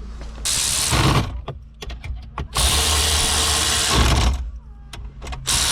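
Cordless power tool running in three short bursts: one under a second, one about a second and a half, and one starting near the end.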